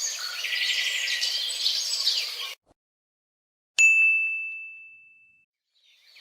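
Birds chirping over a light outdoor hiss, cut off abruptly after about two and a half seconds. A moment later comes a single bright ding, the loudest sound, holding one high tone that rings out and fades over about a second and a half.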